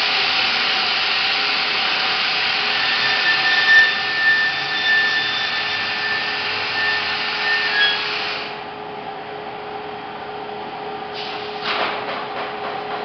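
Loud steady hiss of rushing air or gas from enamelling-furnace machinery, cutting off about eight and a half seconds in, over a steady machine hum. A few knocks near the end.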